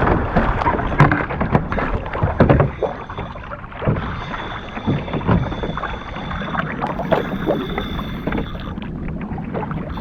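Kayak on open water: irregular paddle splashes and knocks over the first several seconds, then a steadier wash of water and wind.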